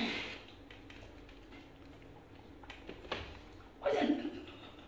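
Small wet clicks and smacks of macaques chewing fruit, with a short voice-like sound about four seconds in.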